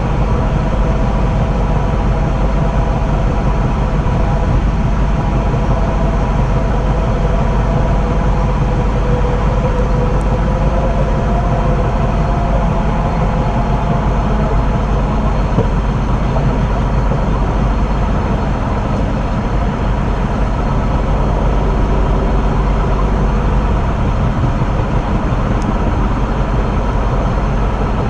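Train running along the track: a steady, loud rumble of wheels on rail with rushing air, and faint whining tones in the first half.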